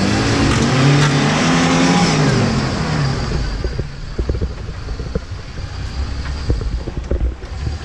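Off-road 4x4's engine revving hard under load, its pitch rising and then falling over the first three seconds along with a broad rushing noise. It then eases to a low rumble with scattered knocks and clunks.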